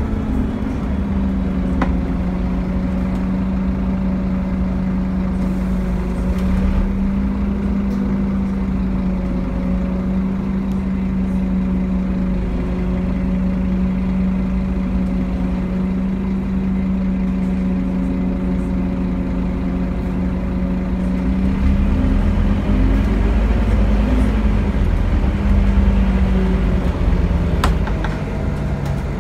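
Scania N230UD Omnicity double-decker bus heard from on board: its five-cylinder diesel engine and drivetrain run at a steady pace with a held whine over low road rumble. In the last few seconds the rumble grows louder and the whine falls in pitch.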